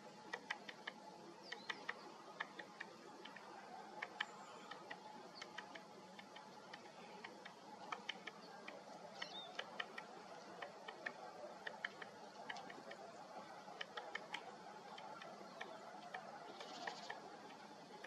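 Great spotted woodpecker pecking at a pine cone wedged in its trunk anvil to get at the seeds: sharp, irregular beak taps, often several in quick succession.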